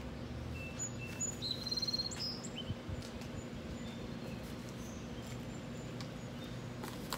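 A songbird chirping and trilling for about two seconds near the start, over a steady low hum.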